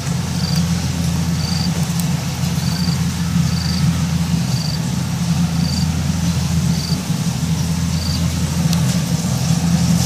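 Kubota DC70 combine harvester's diesel engine and machinery running steadily under load while it cuts rice, a constant low hum. Over it, a short high chirp repeats roughly once a second.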